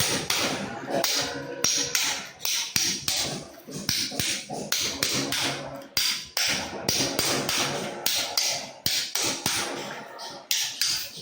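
A hammer striking a chisel in steady repeated blows, about two a second.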